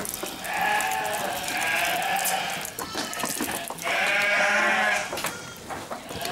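Sheep bleating: a few long, drawn-out bleats, with brief knocks and rustles of handling between them.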